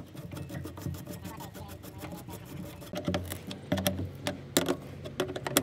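Small metal clicks and clinks of bolts and a ring spanner being worked on an excavator's steel underside cover plate: a fast run of light clicks, then a few louder clinks in the second half, over a low steady hum.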